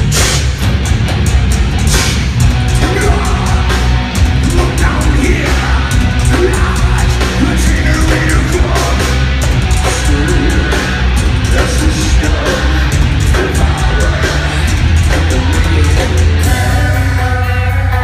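Nu-metal band playing live and loud: distorted guitars, heavy bass and drums with vocals. About a second and a half before the end the drums stop and a held chord rings on.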